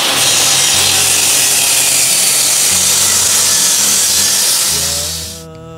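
Table saw ripping a long, thick wooden board lengthwise, a loud, steady hiss of the blade cutting through the wood that cuts off near the end.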